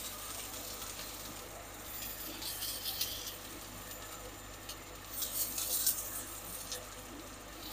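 Sliced onion frying in oil in a wok, a steady sizzle, while a spatula stirs and scrapes across the pan in two spells of quick strokes, about two seconds in and again around five to six seconds in.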